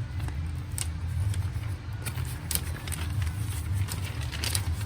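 A steady low engine-like hum, with scattered light rustles and clicks of paper being handled.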